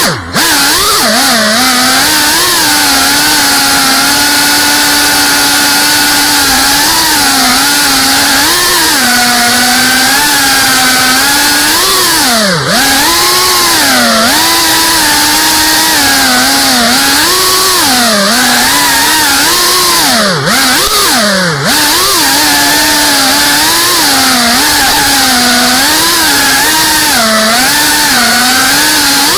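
The brushless motors and ducted propellers of a GEPRC Cinelog35 cinewhoop FPV drone buzzing, heard close up from the onboard camera, the pitch rising and falling with the throttle over a steady hiss of prop wash. The pitch drops sharply about twelve seconds in and twice more around twenty to twenty-one seconds in, as the throttle is briefly cut.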